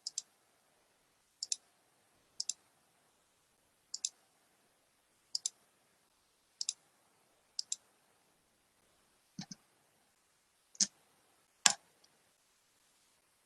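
Computer mouse clicks, each a quick double tick, about one every second, with three louder, heavier clicks near the end.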